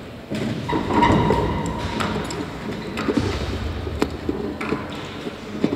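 Clicks, knocks and rumbling handling noise from objects being moved about on a table close to a microphone, with a brief high steady tone about a second in.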